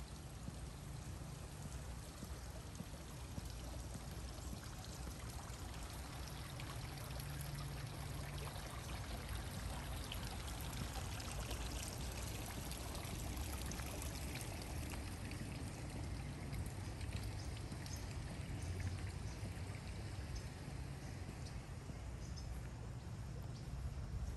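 Steady running and splashing water.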